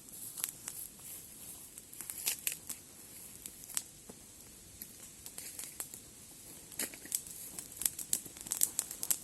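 Irregular crinkling and rustling with scattered sharp clicks and crackles, busiest near the end.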